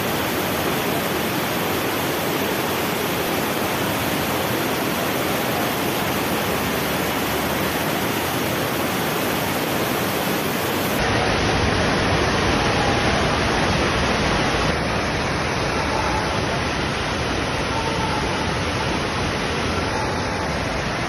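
Fast-flowing floodwater rushing through a concrete channel and pouring over its wall: a loud, steady rush of water with no let-up, deepening about halfway through.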